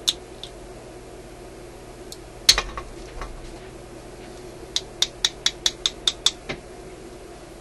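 Small metal pick prying and picking at a hard Bakelite-like tube-socket piece: a sharp snap about two and a half seconds in, then a quick run of about nine sharp clicks near the end, the brittle piece being broken out bit by bit.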